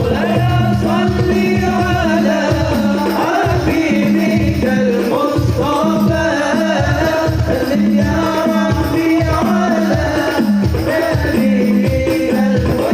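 Sholawat singing with hadroh percussion: a solo voice sings an ornamented, bending melody over steady frame-drum beats with a jingling tambourine-like rattle.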